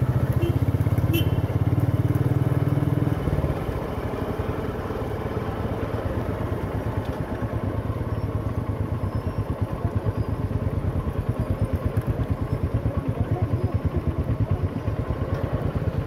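Hero Xtreme motorcycle's single-cylinder engine running steadily under throttle, then dropping off sharply about three seconds in as the throttle is closed. It then runs on at low revs with its firing pulses plain as the bike rolls slowly to a stop.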